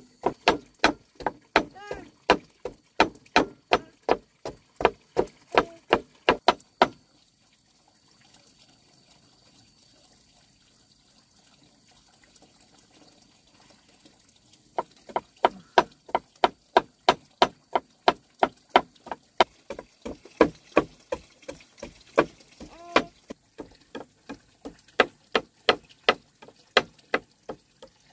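Knife chopping turmeric root on a wooden cutting board, steady chops about three a second. The chopping stops for about eight seconds and then starts again at the same pace.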